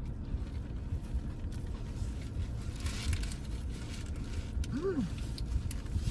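Background sounds of people eating a meal: a steady low rumble with scattered small clicks and a soft rustle about three seconds in. About five seconds in there is one short vocal 'mm' that rises and falls.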